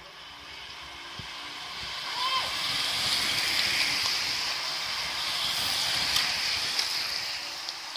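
A small group of racing road bicycles passing close by: the hiss of tyres on asphalt and the whir of chains swell from about two seconds in and stay loud through the middle.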